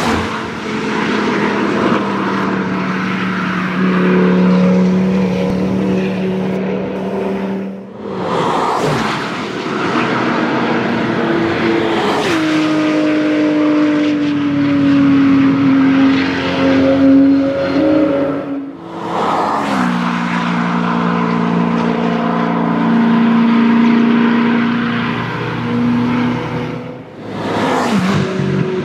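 High-performance sports cars at full speed on a race track, passing close one after another, about four passes each a sharp rush of engine and air with the pitch dropping as the car goes by. Between passes, engines at high revs are heard holding steady notes.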